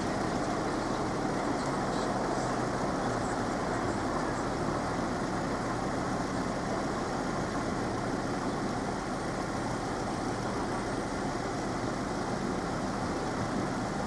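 Steady road traffic noise, with vehicle engines running close by.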